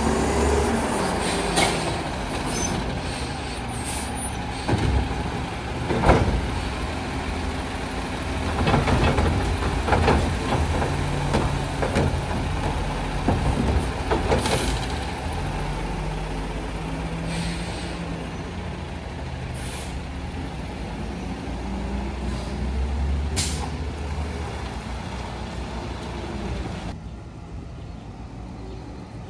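Garbage truck engine running, with several knocks and a few short air-brake hisses; the sound drops away near the end.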